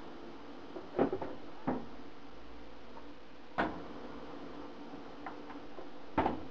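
Plastic front panel of an ATX computer case being pulled off, its snap clips and plastic clicking and knocking four times over a few seconds, with a faint steady hum underneath.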